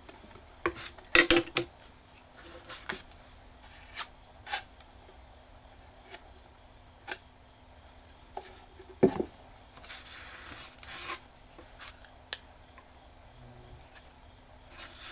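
Wooden spatula clicking and tapping against a lacquered board, with a scraping rub of about a second near ten seconds in, as sabiji (lacquer and whetstone-powder paste) is worked. The sharp clicks are scattered, with a cluster about a second in.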